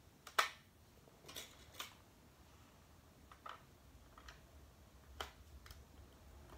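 Faint, scattered clicks of plastic Lego pieces being handled and pressed onto a baseplate, about seven in all, the sharpest about half a second in.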